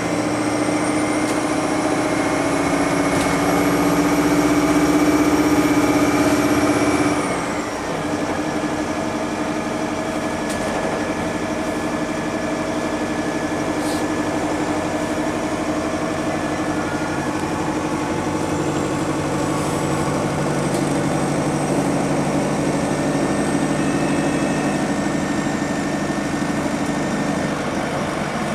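Cummins ISBe diesel of a city bus heard from the passenger cabin, pulling with slowly rising engine pitch and a high whine. About seven seconds in the revs drop sharply with a brief dip in sound, an upshift of the ZF AS-Tronic automated gearbox, and the engine then runs on steadily at lower revs.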